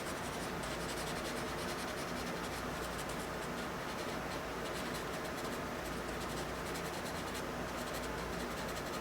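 Repeated light scratchy strokes of a drawing medium on paper, laying white highlights onto the drawing, over a steady background hiss.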